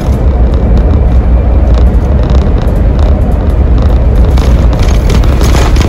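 Iveco Crossway Line bus's Cursor engine and road rumble heard inside the cabin as the bus cruises steadily at speed: a loud, deep, even drone.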